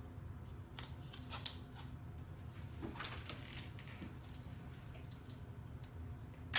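Scattered light scrapes and clicks of vinyl wrap and tools being handled against a mini fridge, the clearest about a second in, at a second and a half and around three seconds, over a steady low hum.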